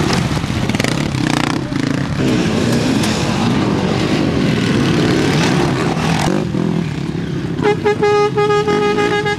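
Off-road motorcycle engines revving up and down hard. Near the end a horn sounds a steady note for about two seconds.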